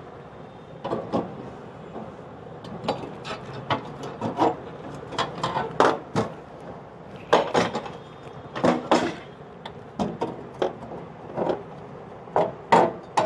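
Stainless-steel gas stove body and burner parts being handled and moved about: an irregular run of knocks, clinks and scrapes of thin sheet metal, some of them sharp.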